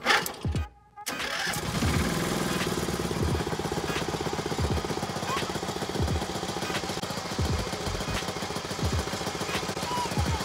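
Small gasoline engine of a mini rollback truck starting about a second in, then running steadily at idle. A low thud recurs about every second and a half.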